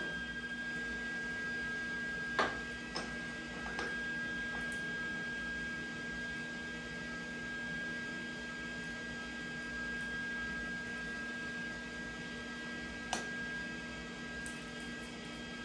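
Steady electrical hum with a thin high steady tone over it, broken by a few short clicks about two and a half seconds, four seconds and thirteen seconds in.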